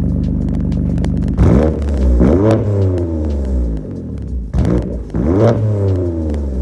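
BMW M4 Competition (F82) S55 twin-turbo straight-six through an aftermarket DD Customs exhaust. It runs steadily, then is revved twice, about a second and a half in and again about four and a half seconds in, the revs climbing and then dropping back each time.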